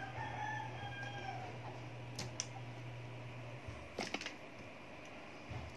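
Light clicks of fingers and small parts on an iPhone display assembly's metal back plate, in two quick pairs, over a steady low hum. A drawn-out pitched call sounds in the first second and a half.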